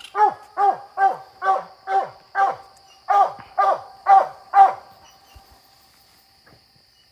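Coonhound barking treed: a steady chop of about ten short barks, roughly two a second, each dropping in pitch, stopping a little after halfway through. The dog is marking a raccoon it has treed.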